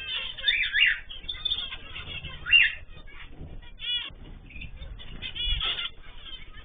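A mixed flock of cage birds (cockatiels, canaries and zebra finches) calling and chirping together, with many short overlapping calls and a few louder squawks.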